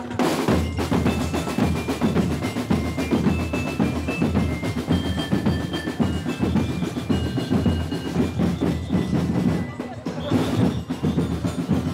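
Festival parade drums: many drums beating together in a fast, continuous rhythm.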